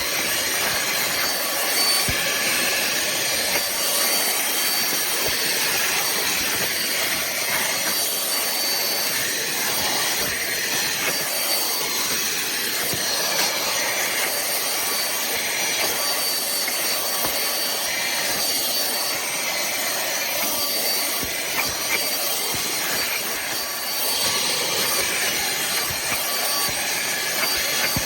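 Pemacom cordless handheld vacuum cleaner running steadily: a rush of air with a faint high whine from the motor.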